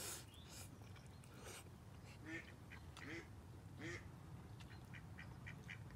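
Ducks quacking close by: three separate quacks, then a quick run of short quacks, about five a second, near the end.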